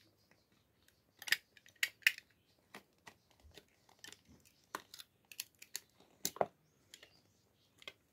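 A cobbler's knife cuts and levers rubber at a plastic sandal heel, making a string of irregular sharp clicks and snips, the loudest a few around one to two seconds in and again past six seconds.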